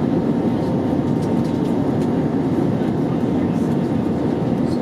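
Steady rumble of an Airbus A321neo's engines and airflow heard from inside the passenger cabin, an even roar with a faint steady hum and no sudden events.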